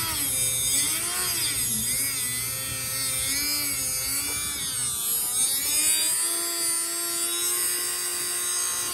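A small rotary tool with an abrasive cutoff wheel, cutting through the starter shaft at the back of a Continental C85 aircraft engine. The motor's whine wavers up and down in pitch as the wheel grinds into the steel, then holds steadier near the end.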